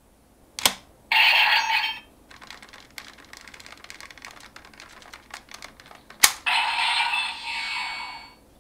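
DX Giffard Rex Vistamp, a plastic electronic toy: a sharp plastic click, then about a second of electronic sound from its small speaker, then light clicking as it is handled. A second click is followed by a longer electronic sound lasting about two seconds.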